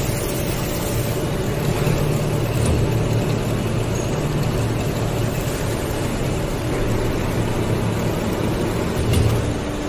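Hydraulic cutting and beading machine for metal utensils running, a steady low mechanical hum with a rough noise over it as a metal container is held spinning between its spindles. The hum swells briefly near the end.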